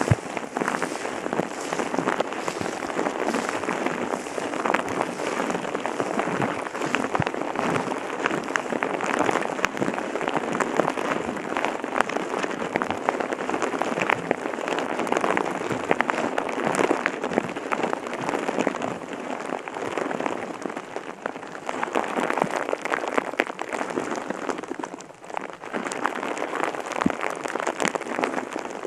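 Steady rain falling, a dense hiss full of many small drop ticks, dipping briefly near the end.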